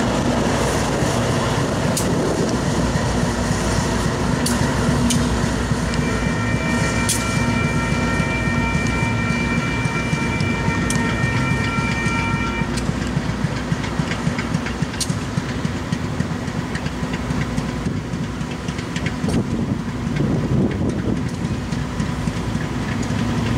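Coal train passing at close range, its trailing Union Pacific diesel locomotive running by and pulling away, with a steady rumble and wheels clacking over rail joints. A steady high-pitched tone holds for about seven seconds in the middle.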